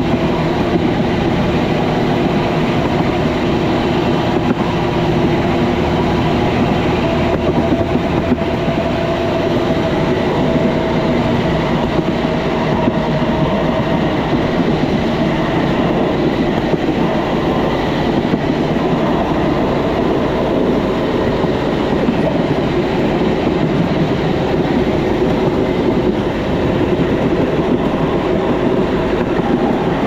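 Motorcycle-powered rail cart (a San Cipriano 'brujita') running along the railway track, a steady loud rattle and clatter of its wheels on the rails.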